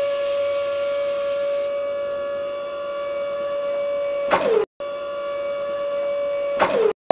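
Small battery-powered DC motor of a toy drilling rig whining at a steady high pitch. It is switched off twice, about four seconds in and near the end, each time winding down with a quickly falling pitch before the sound cuts off abruptly.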